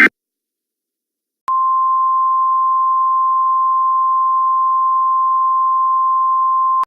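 Emergency alert attention tone: one steady, single-pitched electronic tone that starts abruptly about a second and a half in and holds for about five seconds before cutting off.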